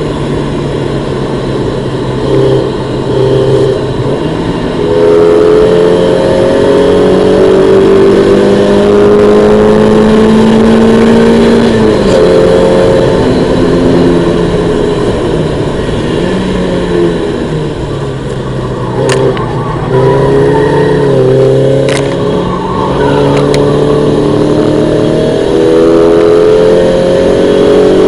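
1991 Mazda MX-5's 1.6-litre four-cylinder engine, heard from inside the cabin, pulling up through the revs and dropping back at each gear change or lift several times on track. A few sharp clicks come about two-thirds of the way through.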